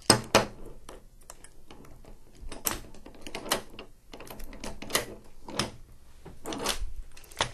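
Metal leg tubes of a small dog wheelchair being adjusted for height: spring push buttons pressed and the tubes slid in and out, giving a string of irregular clicks and knocks, several of them sharp.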